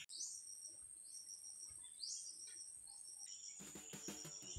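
Quiet rural ambience: a steady high-pitched insect trill, with short rising bird chirps every second or so, and a few soft rustles near the end.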